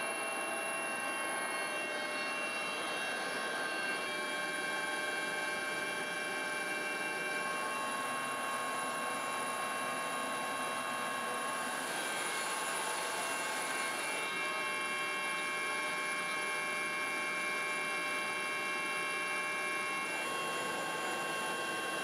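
Helicopter running steadily overhead: a constant whine at several steady pitches over an even rushing noise.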